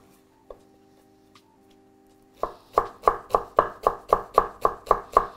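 Chef's knife finely chopping celery on a wooden cutting board. A fast, even rhythm of about four strokes a second starts a little over two seconds in.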